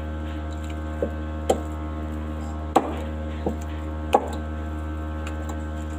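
Hands kneading soft yeast dough in an enamel bowl. A handful of short, dull knocks come as the dough is pressed and pushed against the bowl, the loudest near the middle. A steady low hum runs underneath.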